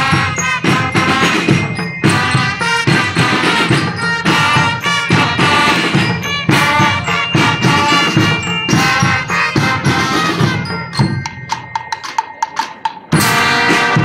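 Student marching band of brass and drums playing. About eleven seconds in, the melody instruments drop out and only the drums keep time for a couple of seconds, then the full band comes back in loudly.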